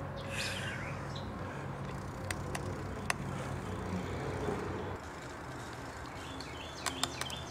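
E-bike ride on a trail: a low steady hum that drops away about five seconds in, a few sharp clicks, and faint chirps near the end.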